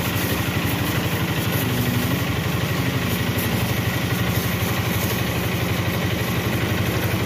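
High-pressure water jet hissing against a mud-caked tractor tyre and rotavator, over the steady run of a motor with a fast, even pulsing beat.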